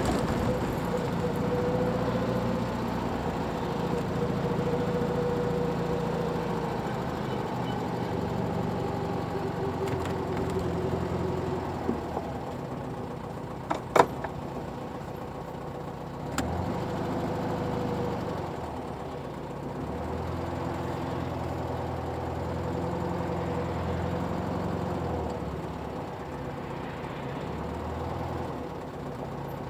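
Car engines idling and running in traffic, swelling and fading, with a few sharp clicks around the middle, the loudest near the halfway point.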